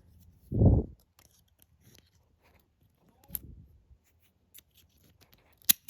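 Faint metal ticks and scrapes of a lock pick and tension wrench working the pins of a brass Master Lock 140 padlock, with one sharp click near the end. A low thump, the loudest sound, comes about half a second in.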